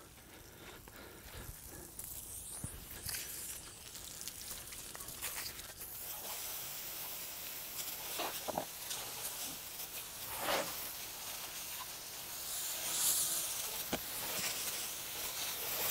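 Water spray from a hose hissing onto a fiberglass boat deck, rinsing off scrubbed-in deck cleaner. The hiss swells near the end, with a couple of brief splashy strokes in the middle.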